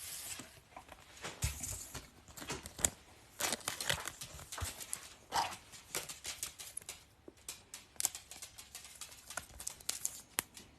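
Hockey trading cards and packs being handled: irregular light clicks, taps and rustling.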